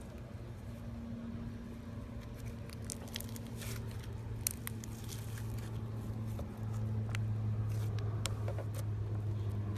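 Slime being squeezed and poked, giving many small sticky clicks and crackling pops, over a steady low hum that grows louder about two-thirds of the way through.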